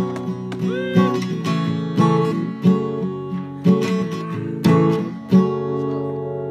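Acoustic guitar music: chords strummed about twice a second, with a couple of notes bent or slid near the start. It ends on a chord a little past five seconds in that is left to ring out and fade.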